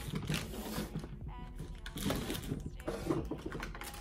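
Clear plastic parts bags crinkling and rustling as they are handled, with small irregular knocks from the parts inside.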